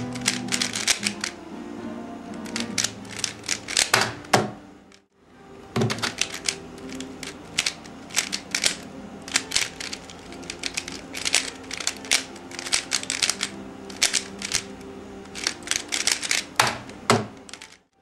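Dayan Guhong 3x3 speed cube being turned fast by hand: rapid runs of plastic clicks and clacks from the layers, with a couple of heavier knocks, over background music. The clicking stops briefly about five seconds in and starts again.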